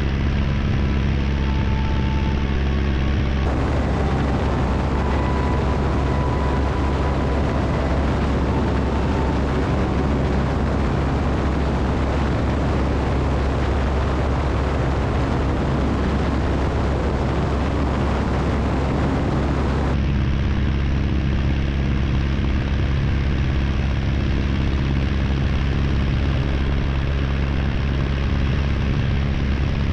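De Havilland Tiger Moth biplane's engine and propeller running steadily in flight, with the rush of wind over the airframe. The wind noise grows louder and brighter a few seconds in and drops back about two-thirds of the way through, while the engine's drone stays even.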